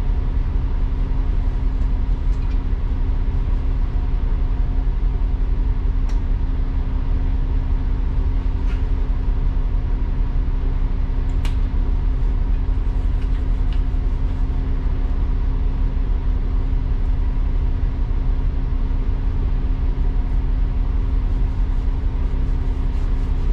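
A double-decker bus heard from its upper deck: a steady low engine and road rumble with a constant hum. A few brief faint clicks or rattles come through every few seconds.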